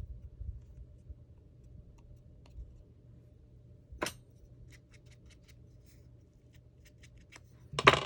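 Scissors snipping through paper or card as a circle is cut out, a run of small crisp snips. There is a sharp click about four seconds in and a louder clack just before the end.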